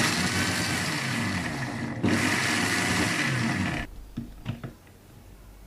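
Electric mixer grinder running in two bursts of about two seconds each, with a brief break between them, grinding chopped garlic with egg whites and lemon juice in its jar. It stops a little before the end, followed by a few light knocks.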